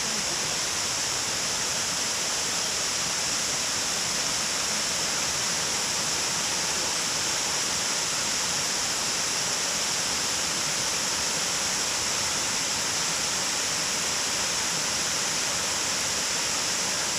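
Water pouring over a small stream dam as a waterfall: a steady, even rushing hiss with no breaks.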